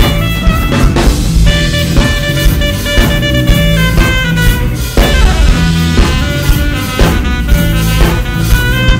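Live band playing instrumentally: an alto saxophone plays a quick, busy melodic line over a drum kit keeping a steady beat, with guitar and bass underneath.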